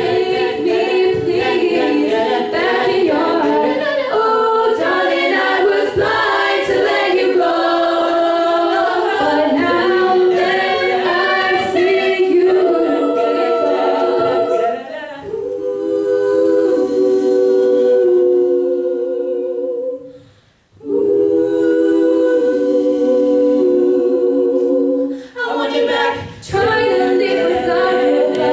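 All-female a cappella group singing through microphones: a lead voice over the other singers' backing harmonies. About twenty seconds in the voices cut off for a moment, then the held chords come back in.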